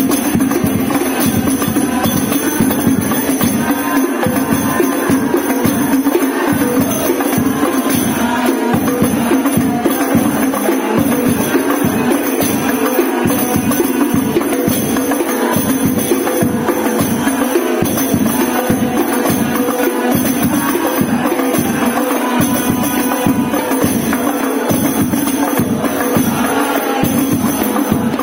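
An ensemble of hand-played rebana frame drums (hadroh) beating a fast, steady, interlocking rhythm without pause.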